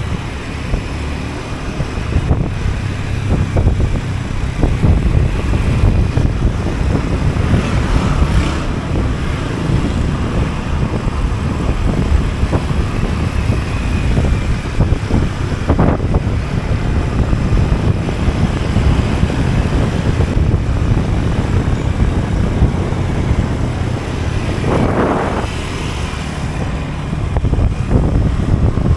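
Wind rushing over an action camera's microphone on a moving motor scooter, over the steady rumble of the scooter's engine and tyres on the road.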